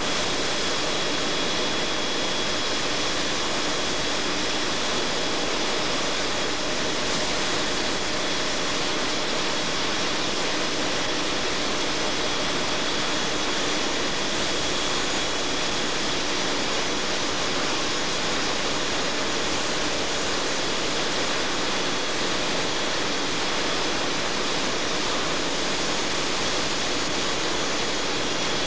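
Large MAN B&W L35MC Mark 6 two-stroke marine diesel engine running steadily on the factory test bed: a loud, even machine noise with a steady high whine above it.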